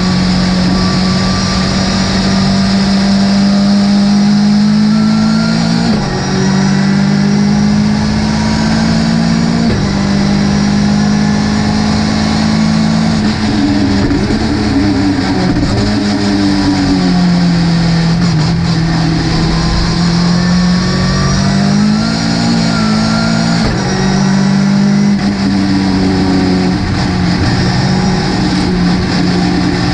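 Ginetta GT5 Challenge race car's engine running hard under racing load. Its note shifts in steps a few times, as with gear changes, sags lower through the middle and climbs again a little after two-thirds of the way through.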